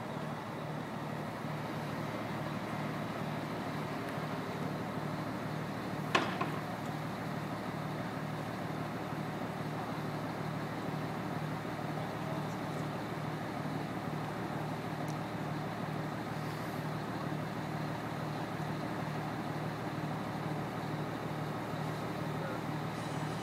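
Crane engine running steadily, with a low, even throb, while it holds a dome on its hook. One sharp knock comes about six seconds in.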